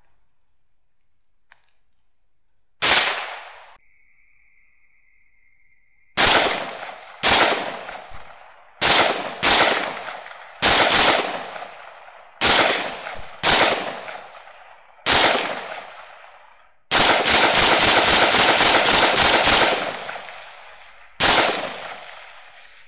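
Rifle gunfire at hogs: a single shot, then a string of shots about a second apart, then a rapid run of several shots a second for about three seconds, and one more shot near the end. Each shot has a short echoing tail.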